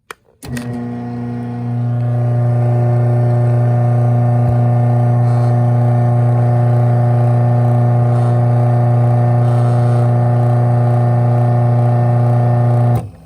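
Craftsman 1/2 hp chain-drive garage door opener running a closing cycle: a click, then a loud steady motor hum that gets louder about a second and a half in, runs for about twelve seconds and stops suddenly.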